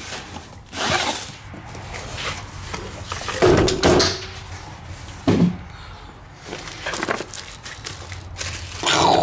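A cardboard shipping box being opened and handled: a series of irregular rips, scrapes and knocks.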